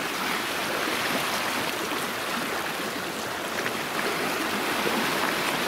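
Small sea waves lapping and washing at the shoreline, a steady rushing wash of water.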